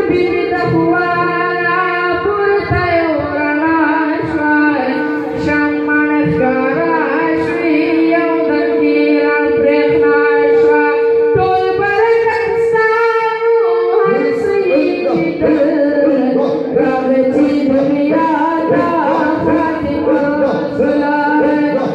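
A young man singing devotional verses through a microphone and loudspeakers, one voice with long held notes, with no clear instruments.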